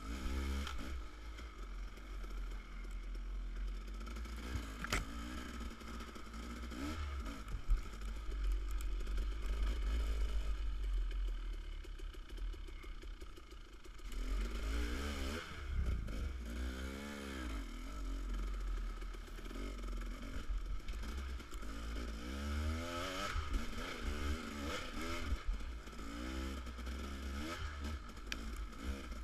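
Dirt bike engine revving up and down repeatedly at low trail speed, rising and falling in pitch again and again as the throttle is worked over rough ground, with a steady low rumble underneath.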